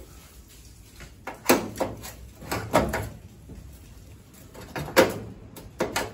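Metal clanks and knocks of magnets and a steel pry bar being set down and moved on the sheet-steel replacement floor pan of a VW Mk1 Rabbit. The knocks are separate and sharp, a pair about a second and a half in, another pair just under three seconds in, and a few more near the end.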